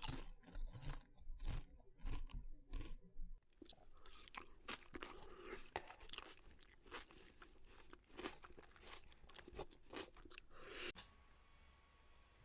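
Close-miked crunchy food being bitten and chewed. About eight loud, separate crunching bites come first, then a denser run of quieter crackling chews, which stops about eleven seconds in.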